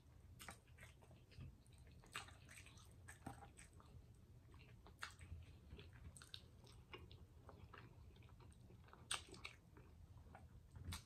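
Faint close-miked chewing of steak: soft, irregular wet smacks and small clicks from the mouth, with one sharper click about nine seconds in.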